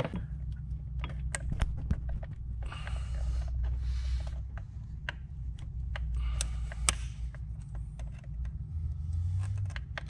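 Needle-nose pliers working a spring hose clamp off a rubber PCV hose: scattered small metal clicks and ticks with a few short scraping rustles, over a steady low hum.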